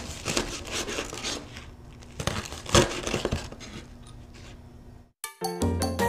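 Chef's knife cutting through crispy fried pork belly on a bamboo cutting board: the crackling crunch of the hard skin giving way under the blade, in two bouts, with sharp clicks as it cuts through. Upbeat Latin-style music starts near the end.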